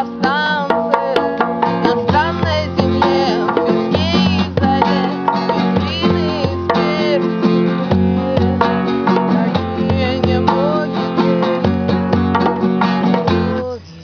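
Acoustic music from plucked and strummed guitar, with a hand drum beating low thumps underneath. The music stops suddenly near the end.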